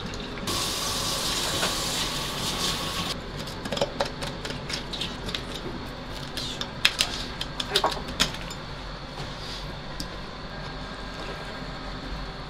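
Knife cutting and scraping through a striped jack (shima-aji) on a cutting board: a run of sharp clicks and taps through the middle, some in quick succession. Before that, a steady hiss lasting about three seconds.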